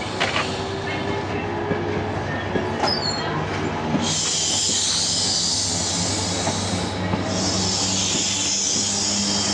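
Passenger train rolling slowly past at close range with a steady low running hum. About four seconds in, a high wheel squeal sets in, breaking off briefly around seven seconds before starting again.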